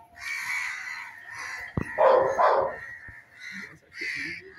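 Animal calls: two loud, harsh calls about two seconds in, just after a sharp click, with fainter calls near the end.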